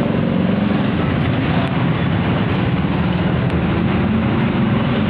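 A vintage Vespa scooter's two-stroke single-cylinder engine running steadily.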